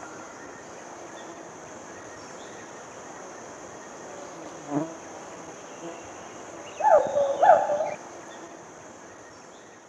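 Gibbon giving two loud whooping calls that swoop up and down in pitch about seven seconds in, with a shorter, fainter call a couple of seconds before, over a steady high insect drone.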